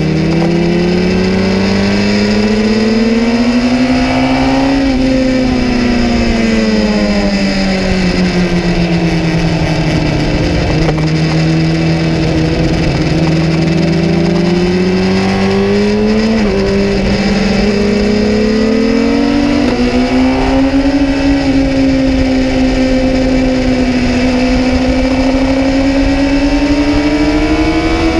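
Kawasaki ZX-10R inline-four engine heard from on board at speed, its pitch rising for the first few seconds, sinking low through the middle, then climbing again with a couple of quick jumps and holding high near the end as the throttle is worked.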